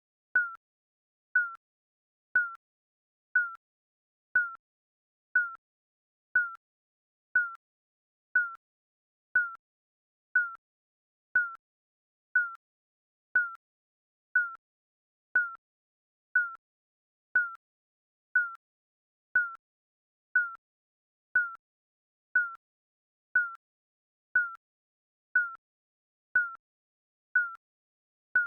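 Digital countdown timer beeping once a second: a short, high electronic beep with a click at the start and a slight drop in pitch, repeating evenly.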